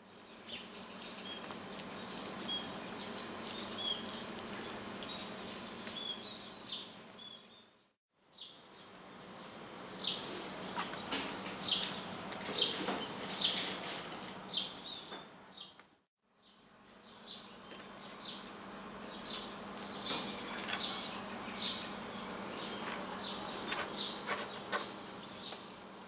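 Small birds chirping in the background over a steady low hum. The sound fades out and back in twice, about 8 and 16 seconds in.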